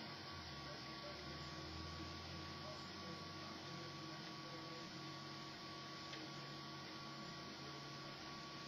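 Prusa Mendel 3D printer running a print, its stepper motors making a steady hum. The hum has tones that shift in pitch every second or so as the print head changes moves.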